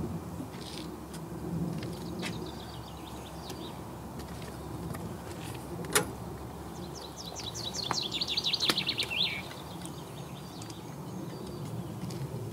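A songbird chirping now and then, then singing a fast trill of quickly repeated high notes from about seven seconds in for two or three seconds. A single sharp knock about six seconds in.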